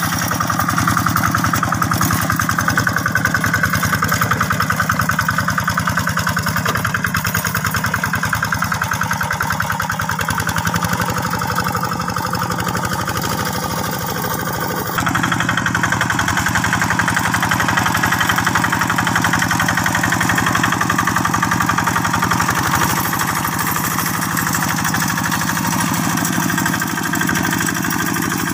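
Quick G600 two-wheel hand tractor's single-cylinder diesel engine running steadily with a rapid, even chug while the tractor works through flooded paddy mud. About halfway through, the engine sound changes abruptly.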